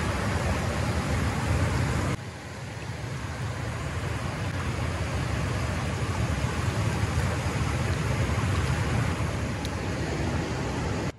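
Whitewater pouring over a stepped river weir: a steady, loud rush that dips suddenly about two seconds in and then builds again.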